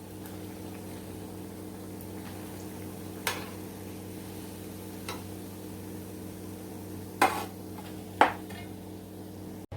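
Battered banana fritters frying in hot oil with a steady low sizzle, and a few sharp clinks of a metal utensil against the pan, the loudest two near the end.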